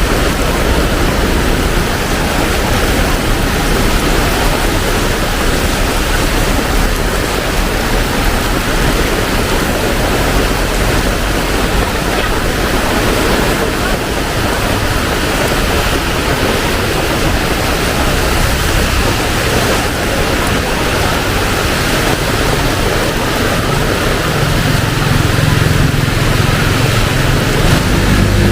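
Heavy tropical rain pouring steadily, a dense loud hiss of downpour. Near the end a vehicle's engine hum rises underneath as it approaches.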